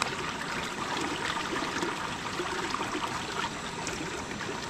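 Water flowing steadily, a continuous running-water noise with faint scattered small ticks.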